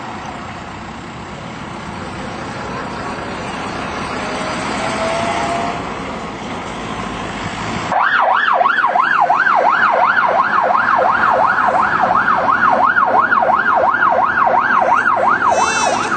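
A double-decker bus engine running as the bus drives past, growing louder. About halfway through it is replaced by a loud siren in a fast yelp, rising and falling about two and a half times a second.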